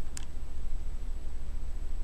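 A steel engine valve clicks once against its seat as a finger presses on its stem, over a steady low hum.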